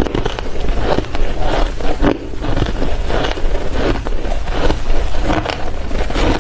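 Soft ice being bitten and chewed close to the microphone: a steady run of wet, crackly crunches, about two a second.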